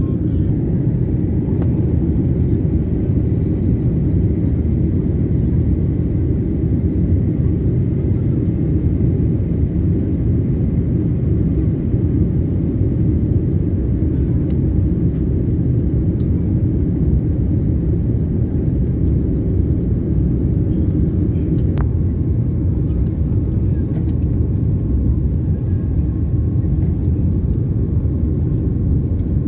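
Steady rumble of an airliner cabin in flight: engine and airflow noise, deep and unbroken, with a faint high tone in the first half and a single light click about two-thirds of the way through.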